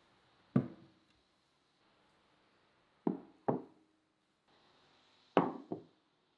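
Dishes being set down on a wooden table, knocking against the wood: one knock about half a second in, two close knocks around three seconds in, and another pair near the end.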